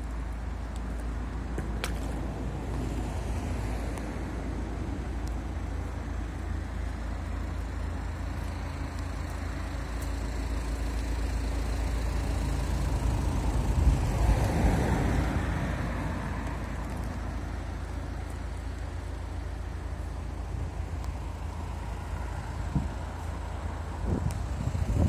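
Wind rumbling on the microphone over steady outdoor noise. About halfway through, a road vehicle passes, its sound rising to a peak and fading away over a few seconds.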